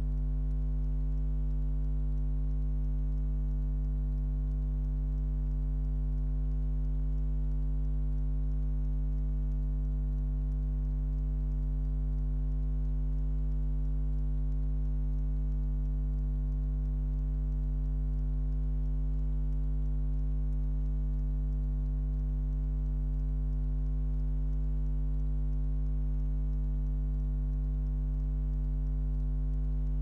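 Hotpoint Aquarius WMA46P washing machine paused with its drum at rest during the soak and main-wash stage, giving off only a steady, unchanging low electrical hum.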